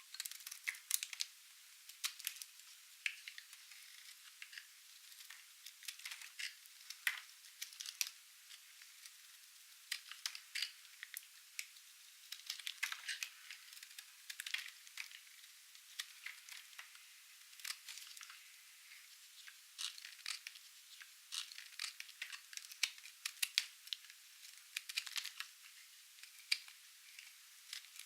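Knife cutting dry, painted soap: irregular crisp crackles and snaps coming in quick clusters.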